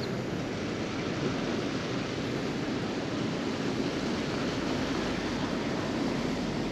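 Steady outdoor rushing noise, even throughout, with no distinct sounds standing out.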